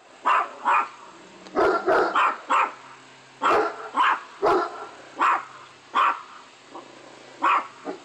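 Dog barking repeatedly as an alert: about a dozen sharp barks at irregular intervals, some in quick pairs, with short pauses between.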